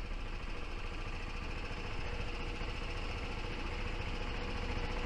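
Golf cart driving along, its motor and rattling chassis making a steady mechanical hum with a faint constant tone.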